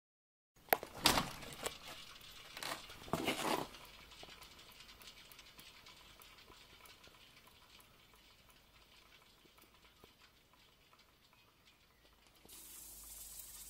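A Babetta moped wheel being spun by hand: a few knocks and rustles as it is pushed round in the first few seconds, then the wheel coasting with a faint rush and many small ticks that slowly fade. A steady hiss starts near the end.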